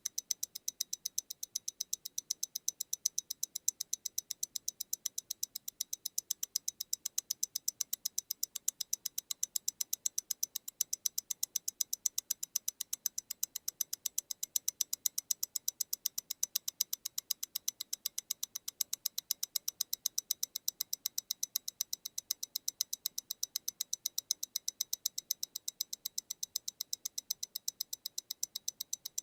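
MEMORIGIN Stellar tourbillon mechanical watch ticking, its movement beating at 28,800 vibrations per hour: an even run of crisp ticks, about eight a second.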